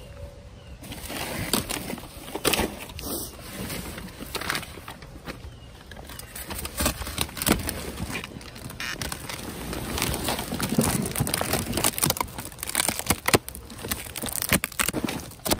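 Rummaging through trash: plastic bags crinkling and cardboard boxes scraping and bumping, a steady crackle broken by many sharp knocks, busier in the second half.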